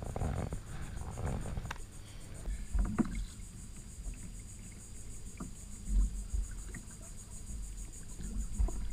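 Kayak paddle strokes in calm water: the blades dip, swish and drip, with three dull knocks, about a third, two-thirds and nearly all the way through.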